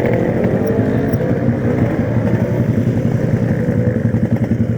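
Yamaha RX-King two-stroke motorcycle engine running at high revs while riding. Its pitch eases off in the first second or so, then it runs on a lower, uneven pulsing note.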